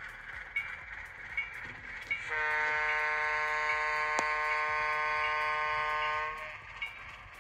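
A model diesel locomotive's sound unit blows a multi-tone air horn in one long blast of about four seconds, starting a little over two seconds in. Under it, light regular clicking of the model train's wheels on the track, about once every 0.7 seconds.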